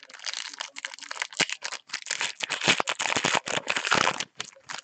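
Clear plastic bag crinkling and crackling as hands work it open, with many sharp crackles, loudest in the second half.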